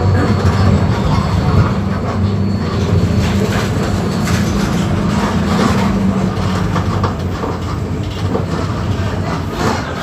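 Diesel engine of a Mercedes-Benz OF-1721 BlueTec 5 city bus running with a steady low hum, along with rattling from the bus body. The engine note eases off about seven seconds in.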